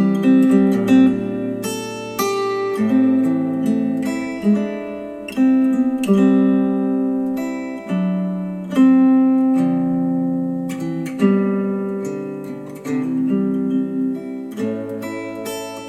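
Acoustic guitar music played back through KEF Q350 bookshelf speakers driven by an NAD C316BEE V2 amplifier: plucked and strummed chords struck every second or two and left to ring.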